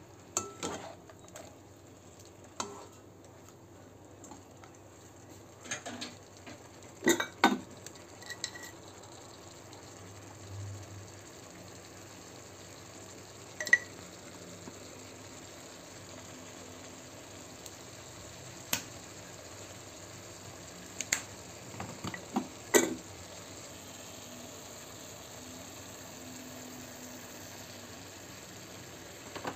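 Bean sprouts and tofu stir-frying in a granite-coated wok: a steady low sizzle with scattered sharp clicks and knocks of a utensil against the pan. The loudest knocks come in a cluster about seven seconds in and again around twenty-two seconds.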